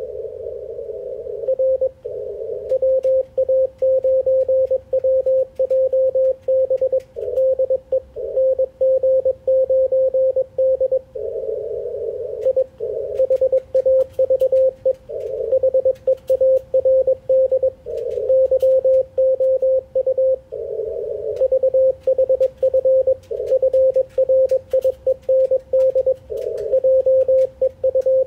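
Morse code (CW) heard on an Icom IC-746PRO HF transceiver tuned to the 80-metre band: a single steady mid-pitched tone keyed on and off in quick dits and dahs. Between characters, narrow-filtered band hiss swells up, with faint crackles of static.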